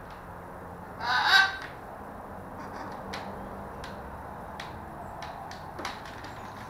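Blue-and-gold macaw giving a single loud call, under a second long, about a second in. Scattered light ticks and splashes follow as the macaws dip into plastic tubs of water to bathe.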